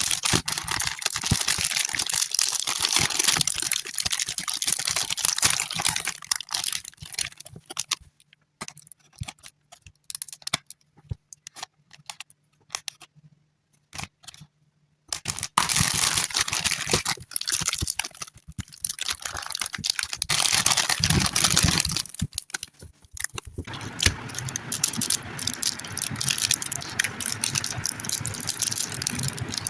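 Plastic packaging crinkling and rattling as a clay kit is unpacked by hand, in dense spells with a quieter stretch of scattered clicks in the middle.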